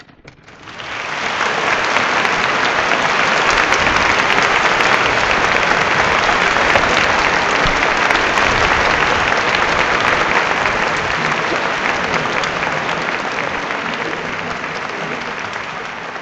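Concert audience applauding at the end of the performance: a few first claps, swelling within about two seconds into dense, steady applause that slowly eases off towards the end.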